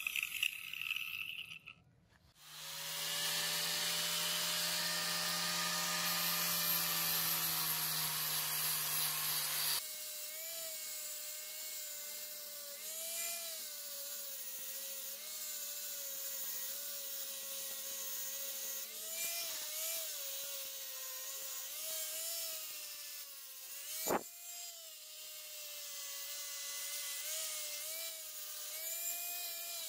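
Electric angle grinder with a sanding disc grinding a steel sword blade: a steady motor whine whose pitch wavers as the disc is worked against the metal. There is a brief break about two seconds in and a single sharp click about three-quarters of the way through.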